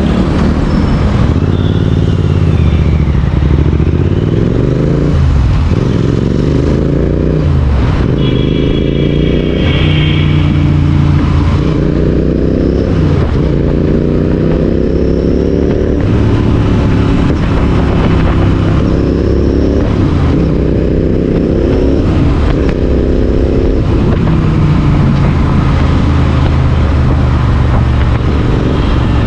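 Royal Enfield Interceptor 650's parallel-twin engine through a Red Rooster aftermarket exhaust, ridden and accelerating: the engine note climbs in pitch and drops again many times as the rider runs up and shifts through the gears.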